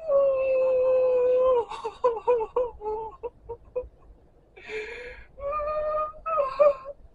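A man crying: a long held wail, then broken, catching sobs, then a breathy sob and two more wailing cries near the end.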